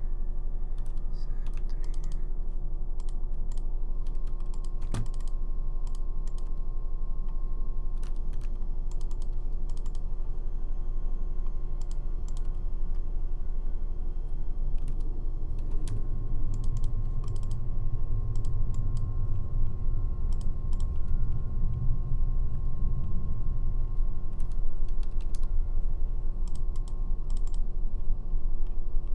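Scattered computer keyboard and mouse clicks while drafting in AutoCAD, over a steady low hum that swells a little past the middle.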